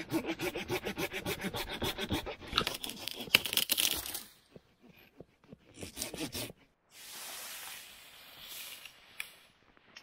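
Handsaw cutting wood in quick, rhythmic back-and-forth strokes, stopping about four seconds in, with a shorter burst of sawing a couple of seconds later.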